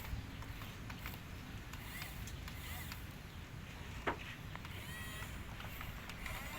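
Low steady rumble of a heavy vehicle engine, with a single sharp knock about four seconds in and a few faint chirping calls.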